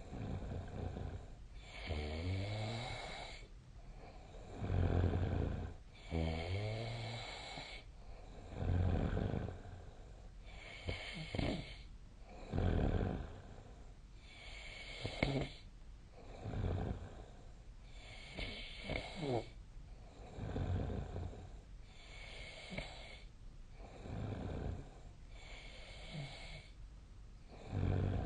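A person snoring in sleep, about one breath every two seconds, several of them with a low buzzing rattle.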